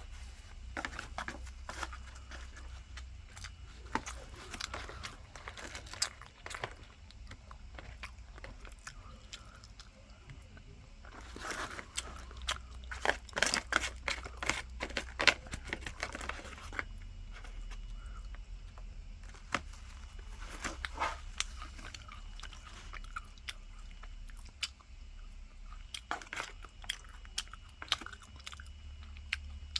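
Close-up chewing and crunching of crispy breaded tonkatsu, a run of irregular crunches that grows densest and loudest about halfway through.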